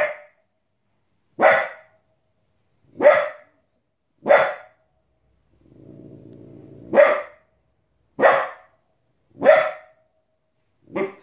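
A 15-week-old Border Collie puppy barking at animals on the TV: eight sharp single barks, about one every second and a half, with a pause in the middle.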